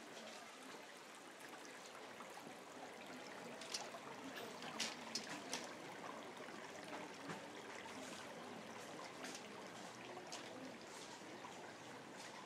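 Faint trickling of running water, steady throughout, with a few soft clicks about four to five and a half seconds in.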